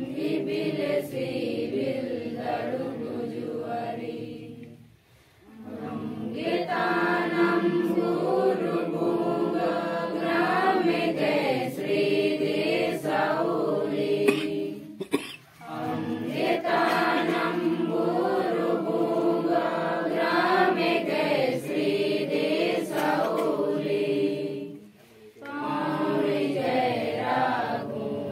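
A group of voices singing a prayer in unison, in long sung phrases broken by short pauses about every ten seconds.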